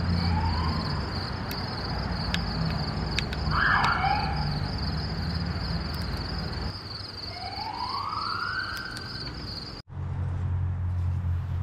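Steady, evenly pulsing high chirring of insects such as crickets, with a low hum beneath, a few faint clicks and two slow rising tones. It breaks off abruptly near the end.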